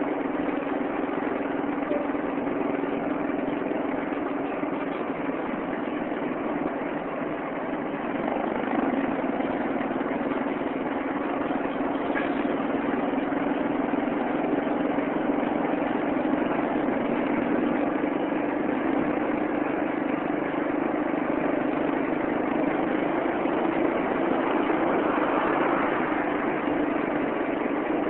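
A vehicle's engine running steadily with road noise, heard from inside while moving. It is a continuous low drone that eases off briefly and picks up again about a quarter of the way in.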